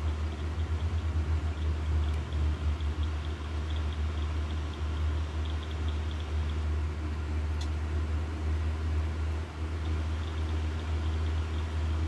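Amusement park dark ride: a steady low rumble that flutters unevenly during the first few seconds, with faint light ticking above it.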